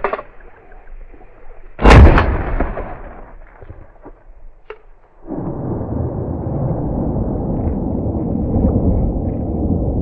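One shotgun shot about two seconds in, loud and sharp with a short echoing tail. From about five seconds in, a steady rushing noise follows.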